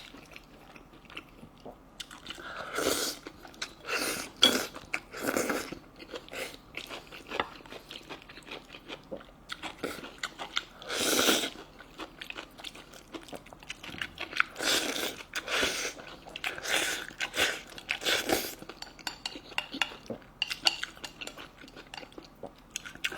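A person eating close to the microphone: irregular chewing and biting with crunchy bites, and now and then a light clink of tableware.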